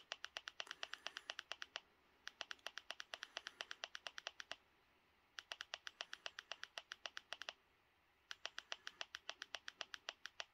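Rapid, faint plastic clicking, about eight clicks a second in four runs of roughly two seconds each, from remote-control buttons pressed over and over to scroll down a Blu-ray menu's subtitle list.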